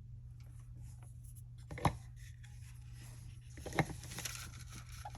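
Two sharp clicks of small metal pistol parts being handled and knocked during Glock disassembly, about two seconds apart, with light rustling between them.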